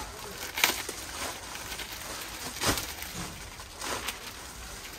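A few brief rustles as a saree is unpacked and unfolded by hand.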